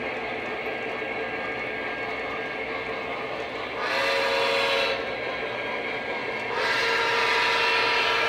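Lionel O-gauge model steam locomotive running on its track, sounding its electronic whistle twice: a blast of about a second some four seconds in, then a longer one near the end.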